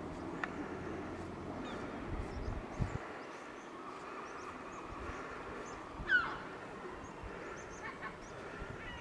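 Outdoor street ambience with small birds chirping faintly, a few low thumps near three seconds in, and one louder, gliding bird call about six seconds in.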